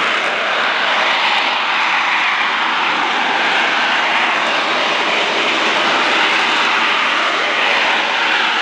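AV-8B Harrier II's Rolls-Royce Pegasus turbofan running loud and steady as the jet flies shortly after a short takeoff.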